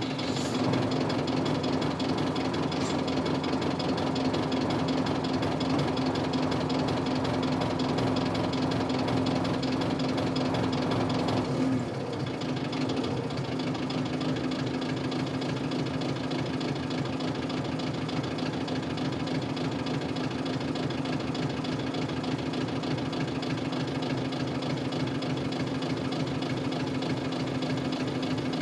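Isuzu 8PE1 V8 diesel of a 1998 Isuzu Cubic KC-LV380L bus running steadily with a knocking beat. The sound drops a little about twelve seconds in. This engine is known to idle quite unsteadily and to make an abnormal noise.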